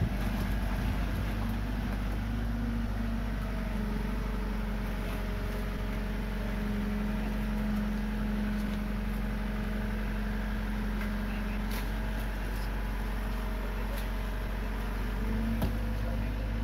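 Komatsu PC45 mini excavator's diesel engine running steadily as it works the boom, arm and bucket, with a fainter higher hydraulic note that shifts a little as the arm moves.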